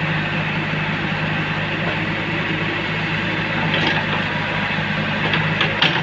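JCB 3DX backhoe loader's diesel engine running steadily under load while the backhoe digs, with a few short sharp knocks about four seconds in and again near the end.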